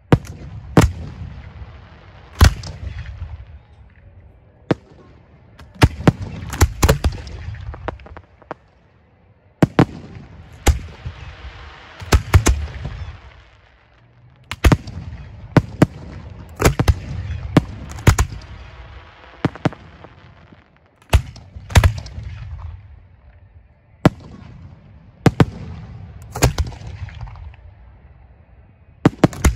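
Aerial fireworks display shells fired from mortar tubes: a string of sharp, loud bangs at irregular gaps of one to two seconds, each followed by a low rumble.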